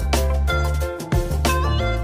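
Background music: an upbeat instrumental with a deep bass line, drum hits and a stepping melody.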